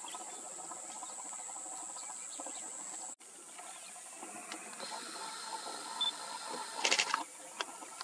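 Grassland ambience dominated by a steady, high-pitched insect drone, with a short burst of clicking and rustling about seven seconds in and a brief cut in the sound about three seconds in.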